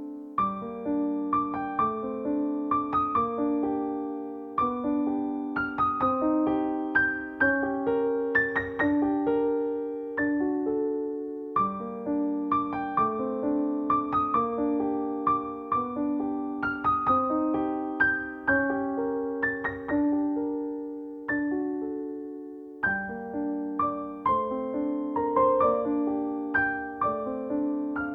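Background piano music: a gentle melody of single struck notes, each fading away after it is played.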